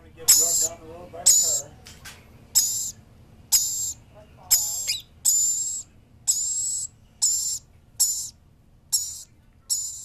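Lory parrot giving short, shrill, raspy high-pitched calls over and over, about one a second.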